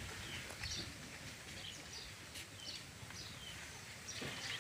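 Short, high chirping animal calls, each falling in pitch, repeating irregularly about twice a second over faint outdoor background noise.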